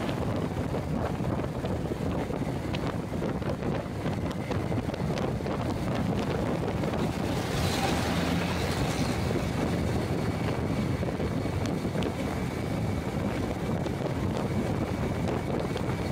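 Wind buffeting the microphone over the steady rumble of road and traffic noise, recorded from a moving vehicle. A louder rush swells briefly about halfway through.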